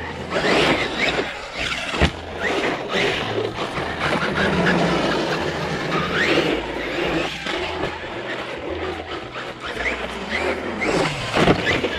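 Brushless RC monster truck driving hard on concrete: the motor whines up and down with the throttle while the tyres scrub and squeal. There is a sharp knock about two seconds in.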